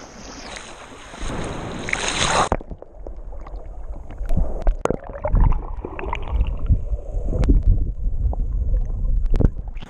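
Sea water sloshing and splashing close to the microphone, with irregular low rumbles and sharp knocks. The first couple of seconds are a steady rush of surf.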